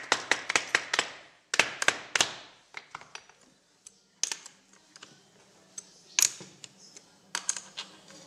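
Sharp metallic clicks and taps from metal type and hand tools at a letterpress forme. There is a quick run of clicks in the first second and three strong clicks a little later, then scattered ticks with single louder clicks and a short cluster near the end.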